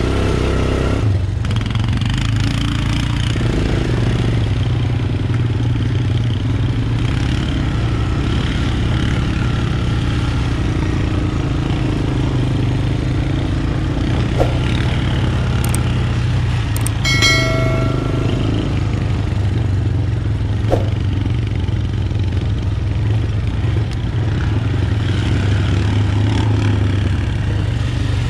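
Honda FourTrax Recon ATV's single-cylinder four-stroke engine running steadily while riding a dirt trail. A few sharp clicks or knocks come in the middle, and about 17 seconds in there is a brief high-pitched squeak.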